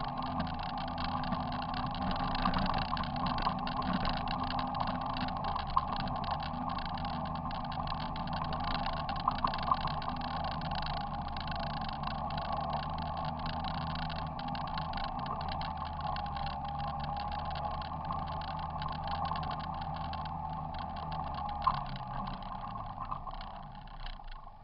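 Off-road vehicle engine running steadily while driving a dirt trail, with a few sharp knocks along the way; the sound drops off near the end.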